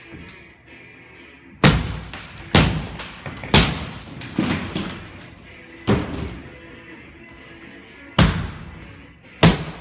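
Heavy irregular thuds and crashes of demolition work on a wooden ceiling structure, about six blows spaced one to two seconds apart, each with a short ringing tail. Faint music plays underneath.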